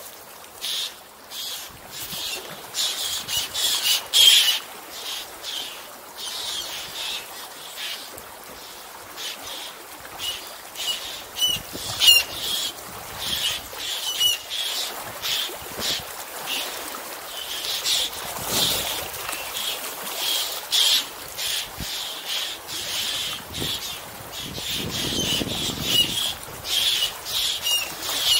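A flock of seabirds calling, with many short, sharp, high calls overlapping and repeating without pause.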